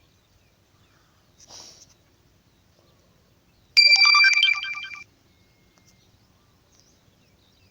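A smartphone notification tone, a LINE app alert sound, plays once for about a second: a quick run of electronic notes over a steady high tone that fades out at the end.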